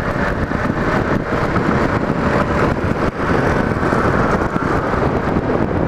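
Yamaha Fazer 250 motorcycle under way, its single-cylinder engine running steadily under road and wind noise.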